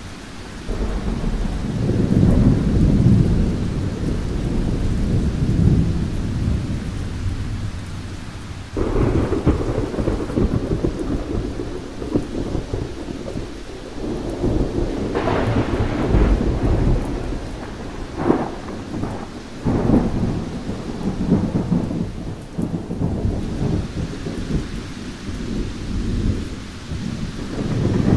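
Thunderstorm: rolling thunder over steady rain, with a sudden clap about nine seconds in and several sharp cracks in the middle.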